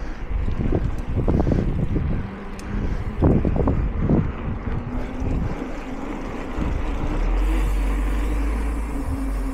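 Wind buffeting the microphone in uneven gusts, then a motor vehicle's steady hum coming in about halfway through and holding.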